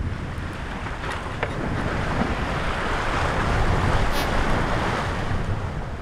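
Rush of breaking sea water along the hull of a small sailboat driving through rough seas, with wind buffeting the microphone. The noise swells to a peak around the middle and eases toward the end.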